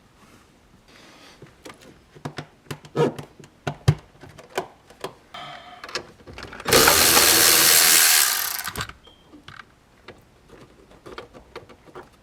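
Scattered clicks, knocks and light rattles of parts and hand tools being handled while working on a car, with a loud hissing or scraping noise lasting about two seconds midway through.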